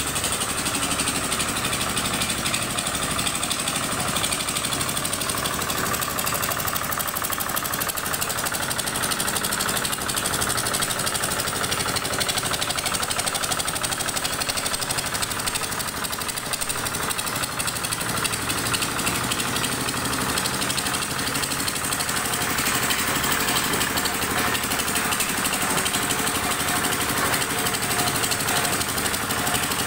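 Small vibratory baby roller running steadily with its drum vibrating, a rapid pulsing rattle over the engine, as it compacts freshly laid paving blocks.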